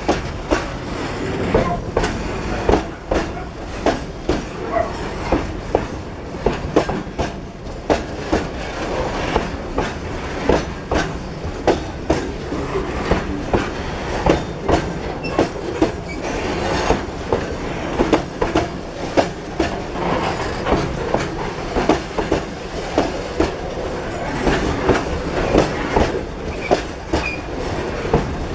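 Loaded freight wagons rolling past close by, their wheels clicking over the rail joints in a steady clickety-clack of about two clicks a second over a continuous rumble.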